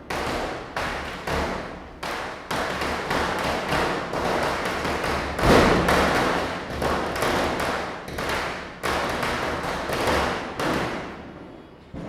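Diwali firecrackers bursting in an irregular run of sharp bangs, about two a second, each echoing away, with the loudest about halfway through. The bursts stop near the end.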